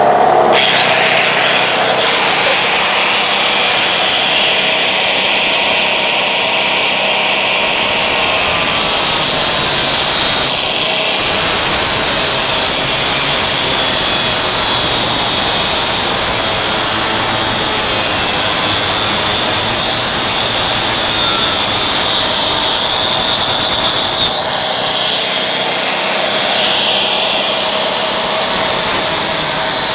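Angle grinder running under load on steel pipe, a steady high grinding whine with a brief break about eleven seconds in and a change in tone near the end.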